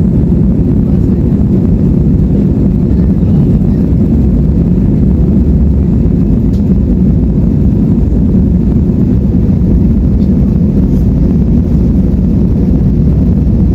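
Airbus A320 cabin noise while rolling on the runway: jet engines and rumble heard from inside the cabin as a loud, steady low rumble that doesn't change.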